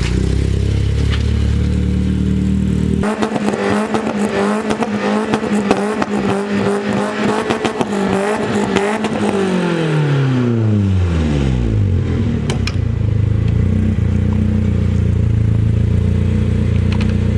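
BMW E30 engine running. About three seconds in it is brought up to higher revs and held there with a rattly, crackling edge. Then the revs fall away over a few seconds and it settles back to a steady idle.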